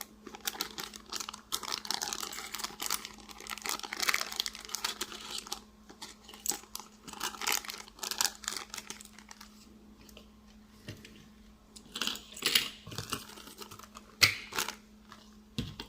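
Crinkling plastic packaging and light clicks of small model parts being handled. The crackling is dense for about the first six seconds, then thins to scattered clicks, with a faint steady hum underneath.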